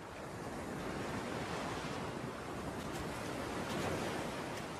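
Sea surf breaking on a beach, a steady wash of waves that swells slightly in the middle, with some wind.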